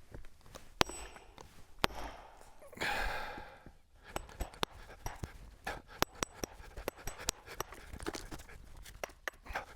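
Splitting wedge driven into a cedar bolt at a branch: two sharp, loud strikes about a second apart, a short noisy rush about three seconds in, then a long run of small ticks and cracks as the wood splits open.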